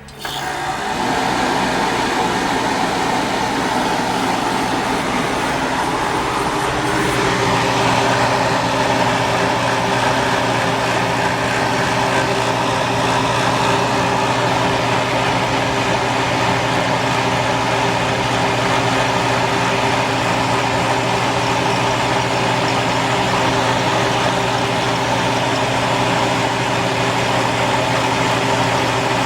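1993 Westinghouse MED40P3 40-pint dehumidifier starting up at the very beginning, then running with a steady hum and a rush of fan air. Its sound shifts and settles about seven seconds in, and stays very noisy from then on.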